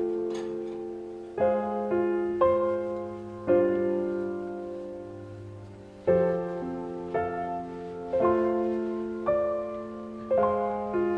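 Gentle solo piano music: slow chords struck every half second to a second, each left to ring and fade.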